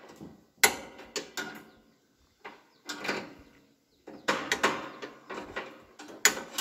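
Irregular metallic clinks and knocks of hand tools and metal parts being handled in an excavator's engine bay, with short pauses between, as the man works at the engine's front to remove the fan guard for a belt change.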